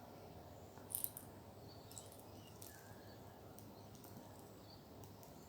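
Near-quiet room with small handling sounds of a baby flying fox at her plastic baby toy: a pair of sharp clicks about a second in, then a few fainter ticks and soft high chirps.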